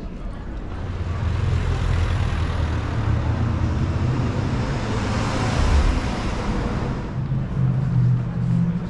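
A motor vehicle driving past on the street: engine and tyre noise swell to a peak about five to six seconds in, then fade, leaving a low engine hum near the end.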